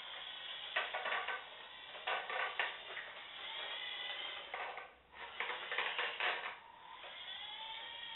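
Homemade radio-controlled snow plough's small electric motors and gears whining as it drives and turns, the whine rising and falling in pitch, with frequent rattles and clicks. The sound dips briefly about five seconds in.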